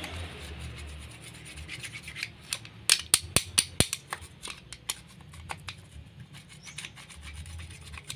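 Hands working on a disassembled motorcycle front disc-brake caliper and its parts: a quick run of sharp clicks and taps between about two and a half and four seconds in, with quieter rubbing and handling noise around it.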